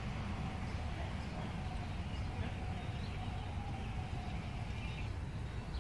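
Outdoor ambience: a steady low rumble with faint, brief bird chirps scattered through it.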